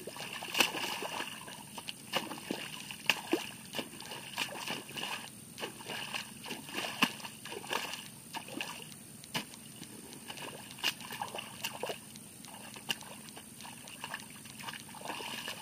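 Hoe blade chopping into waterlogged rice-paddy mud to turn the soil. Irregular wet slaps and squelches come with splashes of muddy water as the blade goes in and is pulled back.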